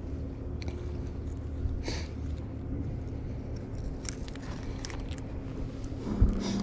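Low steady hum of a bow-mounted electric trolling motor, easing off partway through, with scattered small clicks and rustles of tackle and gloved hands handling a just-caught small bass; a couple of dull thumps near the end.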